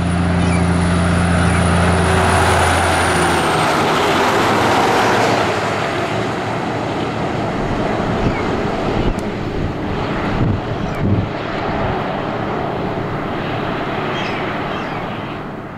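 Road train (a rigid truck hauling three trailers) passing at highway speed: a steady low engine drone for the first few seconds, then a long rush of tyre and wind noise as it goes by, slowly easing off as it pulls away.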